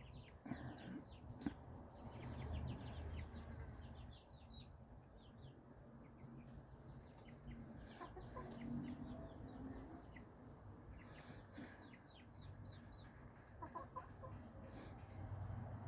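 Young chicks peeping, faint: quick clusters of short high calls, densest early and again about two-thirds of the way through, with a few lower clucks in between. A low rumble runs underneath.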